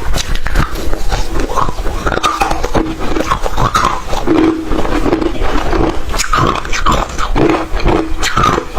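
Close-miked ice being bitten and chewed: a steady run of sharp, irregular crunches, several a second, with wet mouth sounds between them.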